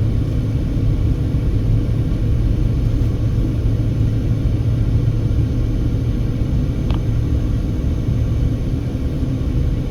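Steady low rumble of a car's engine and tyres heard from inside the cabin while driving, with a faint steady hum above it and one brief faint tick about seven seconds in.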